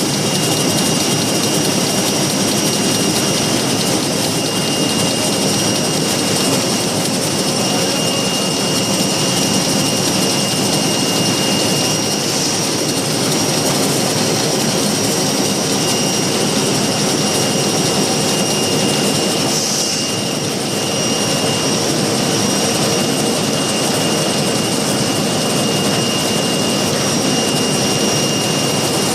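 Napkin folding machine running steadily: a loud, even mechanical noise with a thin high whine held throughout.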